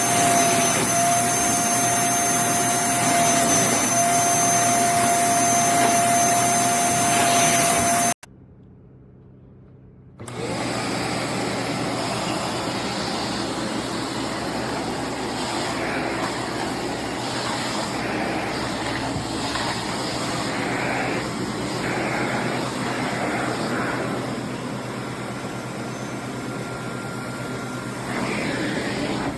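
Bissell Zing bagless canister vacuum cleaner running, a loud motor rush with a steady whine and a high-pitched tone. About eight seconds in it cuts off suddenly and goes quiet for about two seconds. Then it runs again without the whine, a rushing sound that swells and fades.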